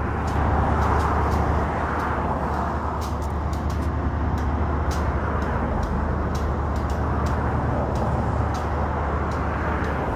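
Rail-yard background sound: a steady low drone with a rushing noise over it and scattered faint clicks, without clear change.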